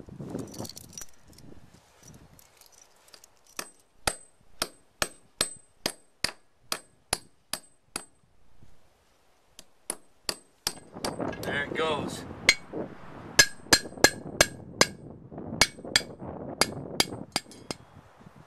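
Claw hammer driving quarter-inch Red Head wedge anchors into drilled holes in stone: sharp metal-on-metal strikes, about two to three a second. After a short pause near the middle comes a second run of strikes.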